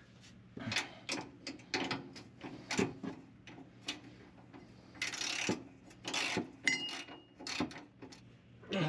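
Hand tools and metal bolts clicking and clinking in short, irregular bursts as a driveshaft's flange bolts are run in, with a brief metallic ring about seven seconds in.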